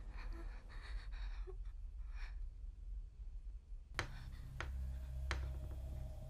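Quiet horror-film trailer soundtrack: a low rumble under faint soft noises, then three sharp clicks a little over half a second apart, after which the low hum swells.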